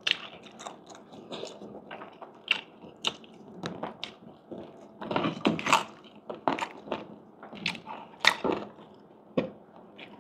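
Close-up eating: a person biting and chewing crispy fried pork, with irregular sharp crunches and louder clusters of crunching partway through.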